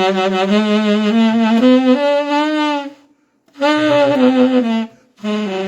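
Saxophone playing a short phrase with every ornament overdone (wobbling vibrato, bent notes, growl and flutter-tongue), giving a comic, circus-like sound. A long note bends upward, breaks off about three seconds in, and is followed by a shorter note sliding down and another note near the end.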